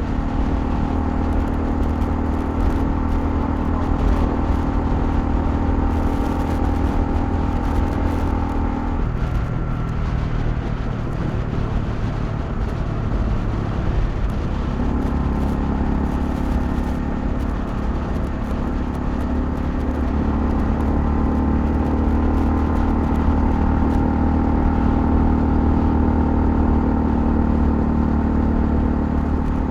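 Honda CL250 motorcycle engine running steadily while riding. Its pitch drops about nine seconds in and climbs again from about fifteen seconds.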